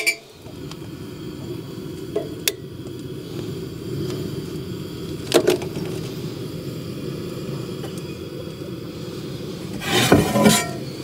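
Two-burner propane camp stove lit and burning, a steady low rush of gas flame from both burners. Sharp clicks come a few times, and there is a short clatter near the end.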